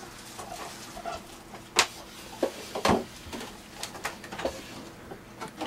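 Kitchen clatter: a handful of sharp, separate clicks and knocks from cups, a jug and containers being handled on a counter.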